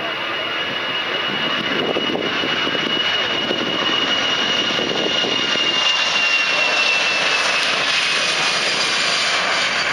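Airbus A320-214's two CFM56-5B turbofan engines at takeoff thrust during the takeoff roll: a loud steady rush of jet noise with a high fan whine that slowly falls in pitch as the airliner passes by.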